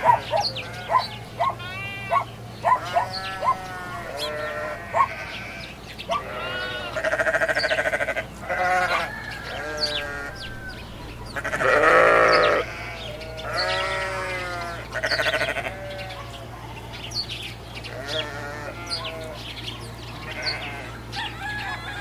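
A run of animal calls one after another, many of them bleating, with the loudest call about halfway through.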